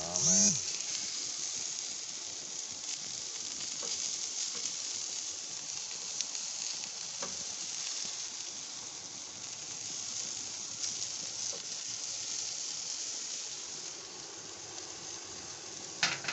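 Chicken drumsticks sizzling on the grates of a gas grill, a steady high hiss of fat and juices cooking. A short loud squeak at the very start and a sharp clack near the end.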